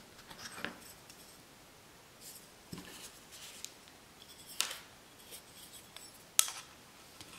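Scattered small clicks and taps of an Extrema Ratio BD4 Lucky folding knife's metal parts being handled during reassembly. The loudest is a sharp click about six and a half seconds in, with another about four and a half seconds in.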